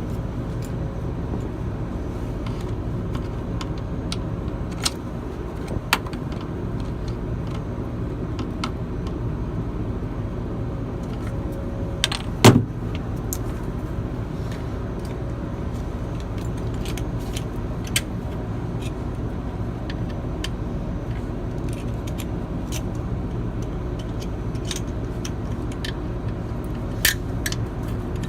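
Scattered metallic clicks and clinks of hand tools on metal, with one louder knock about twelve seconds in, over a steady low machinery hum.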